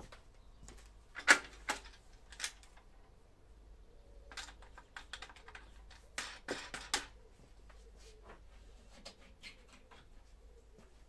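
Scattered sharp clicks and light knocks from the aluminium rip fence of a Scheppach HS-105 table saw being handled and set. They come in clusters, first between about one and two and a half seconds in, the loudest about a second in, and again around six to seven seconds in.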